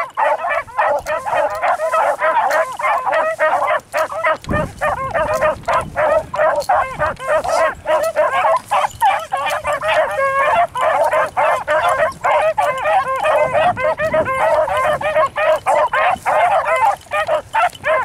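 A pack of beagles baying together without a break, several dogs giving tongue at once as they run a rabbit's scent trail.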